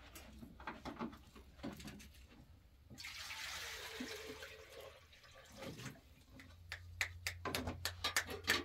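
A gush of running or splashing water for about two and a half seconds, starting about three seconds in, followed by a run of sharp clicks and knocks near the end.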